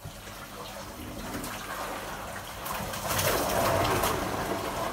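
A recording of floodwater rushing into a house, a torrent pouring in, heard as a steady rushing noise that swells to its loudest about three seconds in.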